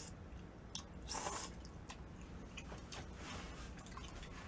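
Slurping kimchi udon noodles off chopsticks and chewing, with a short slurp about a second in followed by quieter chewing.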